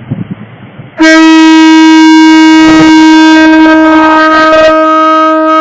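Conch shell horn blown in one long, steady, loud blast, starting about a second in and cutting off sharply near the end.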